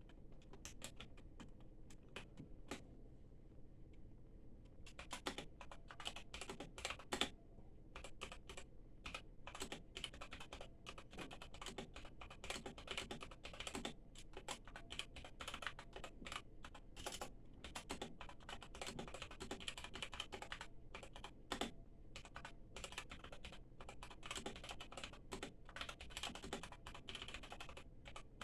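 Typing on a mechanical keyboard: a few separate keystrokes at first, then fast, continuous clacking of the key switches from about five seconds in.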